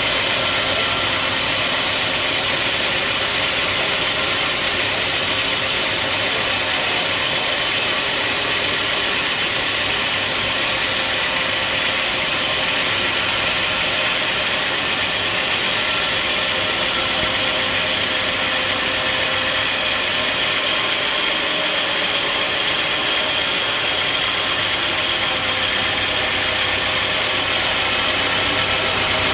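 Sawmill machinery running steadily with a constant high whine.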